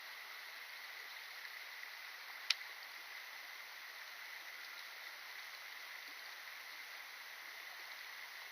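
Steady outdoor hiss with a faint, even high tone running through it, and one sharp click about two and a half seconds in.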